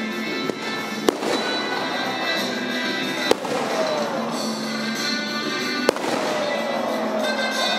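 Aerial firework shells bursting with three sharp bangs, about a second in, just past three seconds and near six seconds, over music playing throughout.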